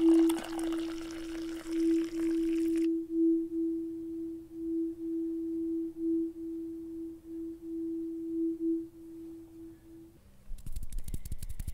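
Water poured from a ceramic teapot splashes into a porcelain cup and stops about three seconds in. A single clear, ringing tone sounds throughout, wavering slightly in loudness, and stops about ten seconds in.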